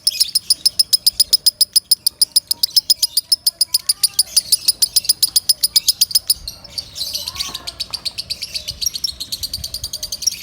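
Lovebird's loud, rapid chattering call: a fast, even string of sharp high chirps, about ten a second. A little past halfway it breaks off briefly and resumes as a denser, more jumbled chatter.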